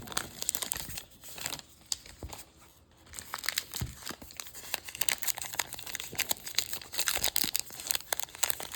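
Baseball trading cards and their pack packaging being handled: dense crinkling and rustling with quick flicks, easing off for a couple of seconds about a second in, then picking up again.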